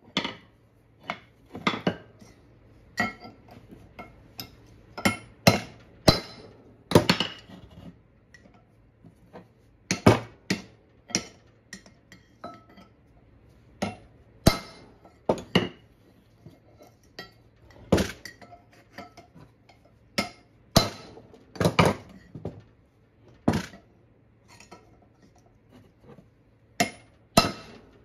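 Hammer striking a cold chisel set against the old bearing on a Chrysler 8 3/4 drive axle shaft to break it off: an uneven string of sharp metal clinks, some in quick pairs, each with a short ring.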